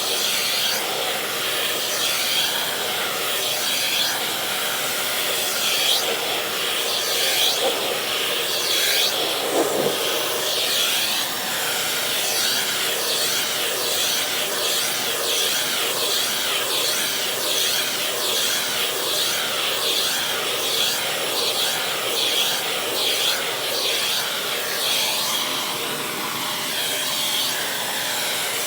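Vacuum cleaner running steadily while its nozzle is drawn through a cat's fur, the hiss swelling and fading with each stroke, about one to two strokes a second.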